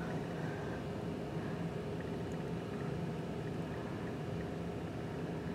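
Steady low hum and hiss of room background noise.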